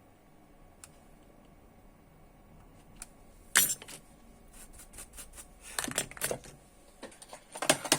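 A sharp click, then a run of small, quick metallic clicks and taps: a metal tool and small hard laptop parts being handled. This comes after a few seconds of quiet.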